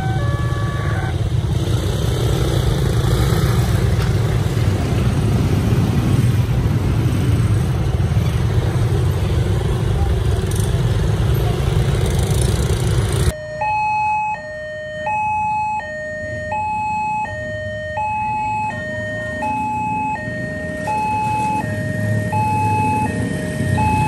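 A railway level-crossing warning sounds briefly and stops as the train clears, followed by a steady low rumble of motorbike and car engines crossing the tracks. About halfway through, another crossing's electronic warning alarm starts, two tones alternating about once a second.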